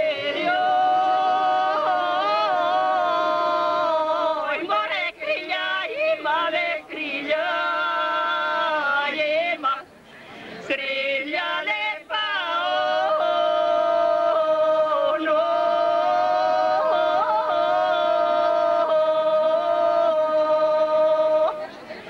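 Three women singing an unaccompanied Pirin folk song together: long held notes with ornamented turns, and short breaks for breath.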